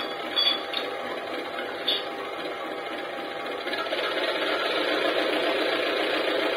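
HO-scale CC 201 model diesel locomotive's engine sound running steadily, with a few short clicks in the first two seconds; it steps up louder and deeper about four seconds in as the engine warms up.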